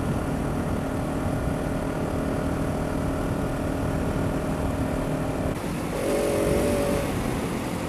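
Husqvarna 701's single-cylinder engine with an aftermarket Barrett muffler, running at a steady cruise under wind rush on a helmet-mounted camera. About five and a half seconds in the sound changes abruptly to the bike on a dirt track, its engine note briefly rising and dipping.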